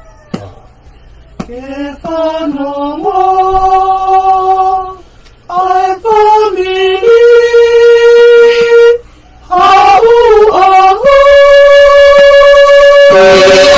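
A family singing a hymn together without accompaniment, in long held notes with short pauses for breath between phrases.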